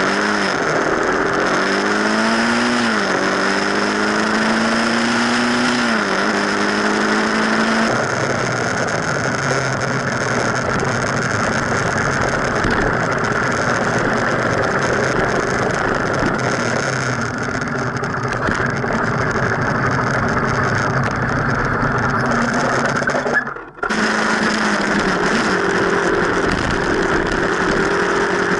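Motorcycle engine accelerating in gear, its pitch climbing and then dropping at each of two gear shifts. Then a steady rush of wind and road noise at speed. After a sudden break near the end, the engine runs at a steady lower pitch. All of it is picked up by a camera mounted on the front fork, so wind buffets the microphone.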